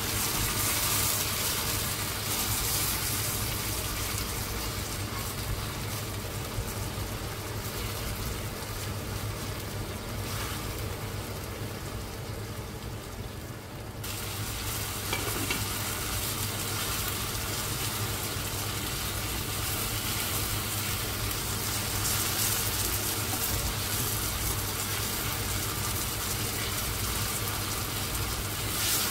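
Eggplant and smoked fish frying in sunflower oil in a pan: a steady sizzle that eases off a little about halfway through, then picks up again.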